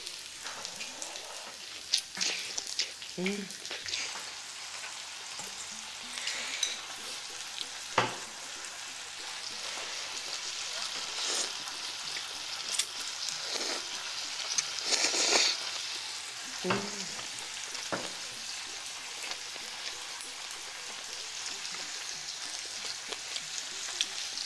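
Pork belly, scallops and kimchi sizzling steadily on a hot tabletop grill plate, with a few sharp clicks of utensils and close eating sounds, including noodle slurping, over it.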